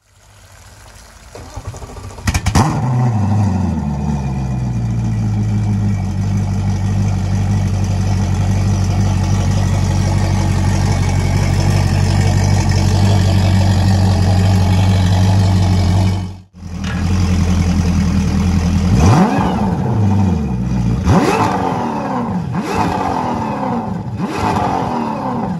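Newly installed Mercury V8 Pro XS 250 hp four-stroke outboard starting about two and a half seconds in, flaring and settling to a steady idle. After a short break it comes back with several quick throttle blips, each rising and falling back to idle.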